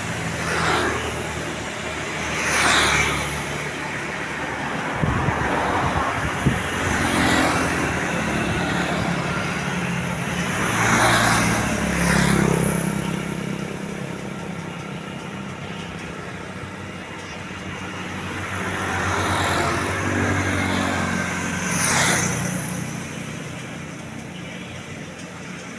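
Road traffic: vehicles passing one after another, each a short swell of engine and tyre noise, about seven in all, over a low steady engine hum. A few brief low knocks come about five to six and a half seconds in.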